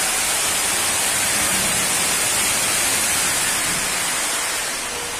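Steam locomotive venting steam: a loud, steady hiss that starts to fade near the end.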